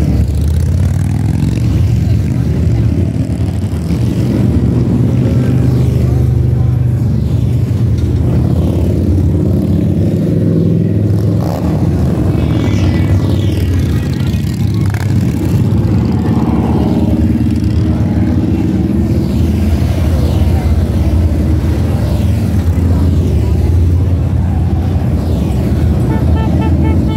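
A parade of touring and cruiser motorcycles passes one after another at low speed. Their engines make a continuous loud, deep rumble that rises and falls a little as each bike goes by.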